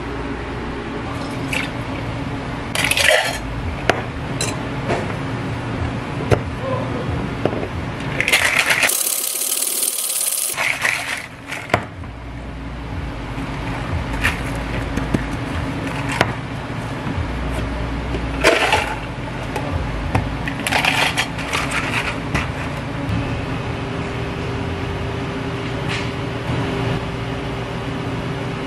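Clinks, taps and rattles of plastic containers, cups and a metal cocktail shaker as desserts and an iced drink are handled, with liquid being poured. A steady fan hum runs underneath, and a sharp hiss lasts about two seconds near the middle.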